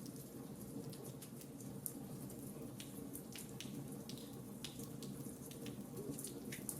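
Fireplace fire crackling: many small, sharp, irregular pops and snaps over a steady low background noise.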